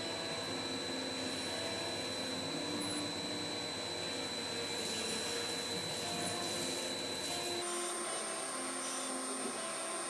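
CNC vertical milling machine spot drilling a PVC block at 5000 RPM under flood coolant: a steady machining noise with a thin high whine and the hiss of coolant spray. About seven and a half seconds in the whine jumps higher and the low end drops away as the cut changes.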